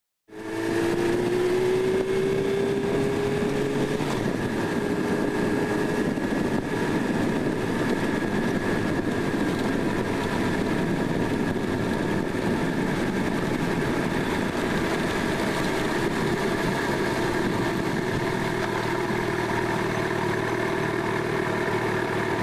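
Motorcycle engine running with steady road and wind noise while riding, picked up from the handlebars. An engine tone rises slightly over the first few seconds, then holds steady.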